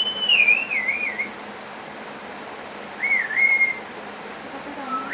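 A parrot whistling two short, wavering phrases. The first starts high and wobbles downward for about a second; the second comes about three seconds in and dips, then holds a level note.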